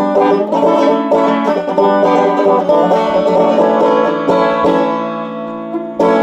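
Banjo picking a bluegrass tune in quick rolls; about two-thirds of the way through a chord is left ringing and fading, and a new strike comes near the end.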